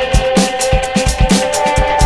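Background music with a quick, steady drum beat under held notes.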